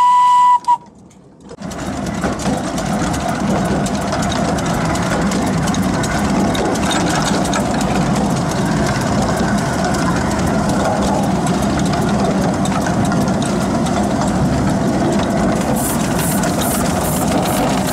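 Miniature steam locomotive's whistle sounding one steady note that cuts off about a second in, then, after a brief drop, the steady noise of the locomotive running along the track, with about three ticks a second near the end.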